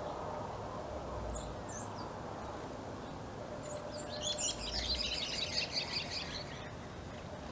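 Lesser finches calling: a couple of short high chirps a little over a second in, then a quick run of high twittering notes lasting about two and a half seconds from about four seconds in, over a steady low background hum.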